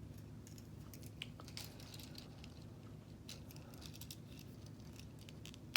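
Plastic K'NEX pieces clicking and rattling lightly as spokes are fitted onto the model's connectors, with a sharper click near the end. A steady low hum runs underneath.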